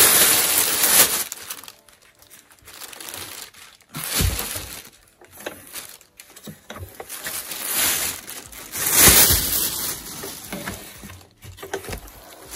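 Speaker packaging being handled during an unboxing: plastic and foam crinkling and rustling in several bursts, with a couple of dull bumps, about four seconds in and again around nine seconds.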